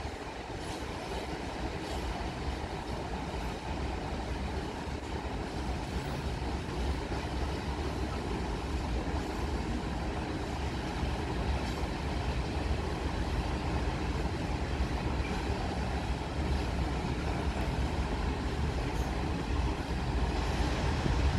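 SM42 (6Dg) diesel shunting locomotive running with a steady low rumble that grows slowly louder.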